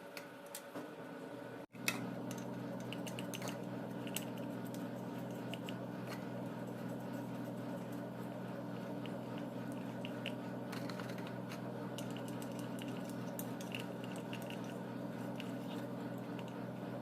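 Steady low hum with scattered light clicks and handling noises.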